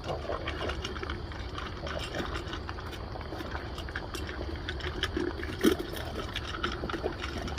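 Boston terrier eating from its bowl: irregular small clicks and chewing sounds over a steady low hum.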